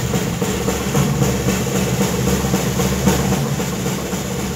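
Hand drums played in fast, steady drumming, a dense run of strokes with no break.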